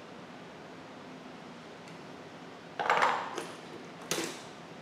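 Metal hand tools clinking as they are handled: a short clatter about three seconds in, then a single sharp clink about a second later.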